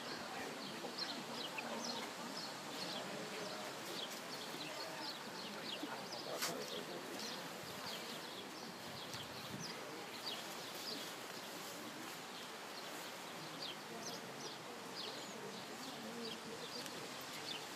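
Small birds chirping over and over, in short high chirps several a second, above a low murmur of spectators' voices.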